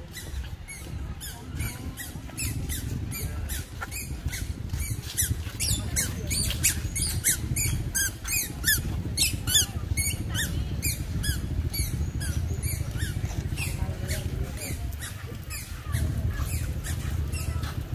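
Songbirds chirping rapidly in the trees, several short high chirps a second, busiest and loudest in the middle, over a steady low rumble.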